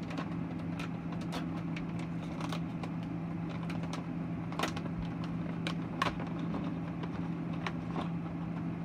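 Plastic treat pouch crinkling and rustling as it is opened and rummaged in, with scattered sharp crackles, over a steady low hum.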